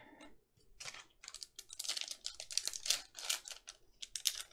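A trading-card pack's foil wrapper crinkling and tearing as it is pulled open by hand, a quick run of crackles starting about a second in.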